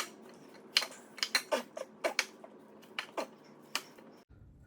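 Kitchen utensils clinking and tapping against cookware during cooking: a dozen or so sharp, irregular clinks, some with a short ring.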